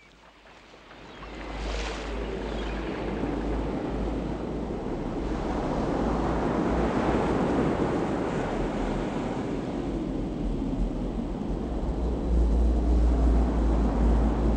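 Heavy storm surf breaking on the shore, with wind buffeting the microphone in a deep rumble; it fades in over the first couple of seconds.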